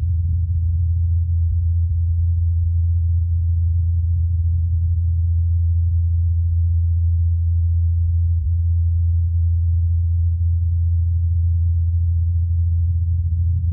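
Ingenuity Mars helicopter's rotor blades spinning in flight at about 2,537 rpm, heard as a steady low hum at about 84 Hz. Recorded by the Perseverance rover's SuperCam microphone, with everything below 80 Hz and above 90 Hz reduced and the hum turned up, so it sounds almost like a pure tone.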